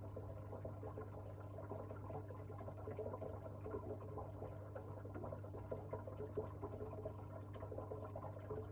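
Quiet ambient sound of a paludarium's running water: faint trickling over a steady low hum.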